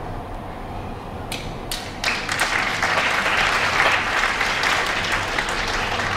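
Audience applauding: a few single claps, then the full applause about two seconds in, which gradually eases off toward the end.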